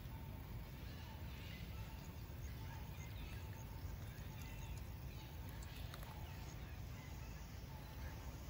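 Outdoor ambience: a low steady rumble with faint, scattered high-pitched chirps.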